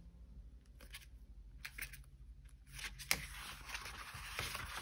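Paper handling: pages of thin Traveler's Notebook passport-size refills flipped and rustled, with light scattered ticks, one sharp tap a little past three seconds in, then a steadier rustle of paper sliding.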